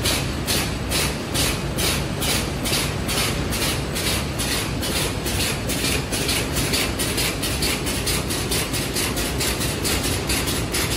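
A hot-sealing plastic bag making machine running, beating out a fast regular rhythm of short hissy strokes, about three to four a second, over a steady low hum.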